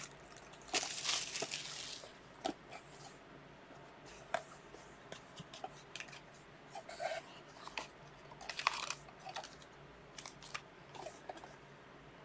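Plastic wrapping being torn and crinkled off trading-card boxes, with a longer tearing rustle about a second in and another later on, and light clicks and taps of the cardboard boxes being handled between them.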